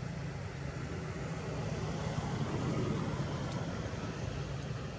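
Steady low rumbling background noise that swells slightly about two seconds in.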